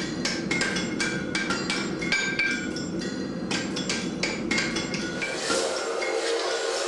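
Hammer blows on metal, several a second in an uneven rhythm, each leaving a short metallic ring. The blows thin out after about five seconds and a hiss rises near the end.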